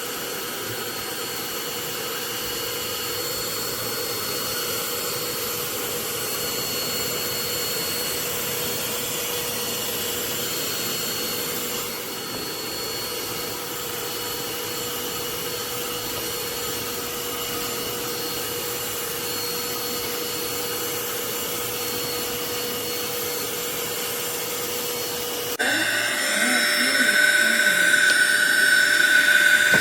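Kärcher CVH 3 Plus cordless handheld vacuum running steadily with a constant low whine over its airflow noise. About 26 seconds in, the sound changes suddenly and gets louder, with a higher whine.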